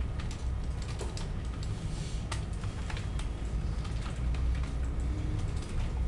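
Typing on a computer keyboard: quick, irregular keystroke clicks as a line of code is entered, over a low steady hum.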